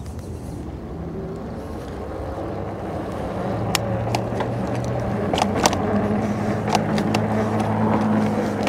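Fat-tire electric bike on a bumpy trail: the motor hums low, growing louder and slightly higher as the bike picks up speed. From about four seconds in, sharp clicks and rattles come as the bike jolts over the bumps.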